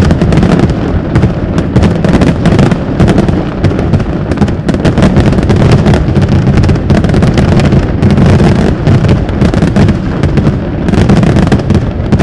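Fireworks display going off in a loud, continuous barrage of overlapping booms and crackling bangs, with no break.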